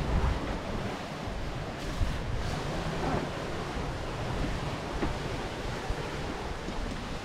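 Surf washing onto the beach, with wind buffeting the microphone in low rumbles and a brief knock about two seconds in.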